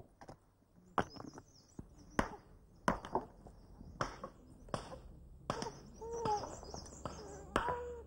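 Hand hammers striking rocks, sharp irregular knocks about once a second, as stones are broken by hand into road gravel.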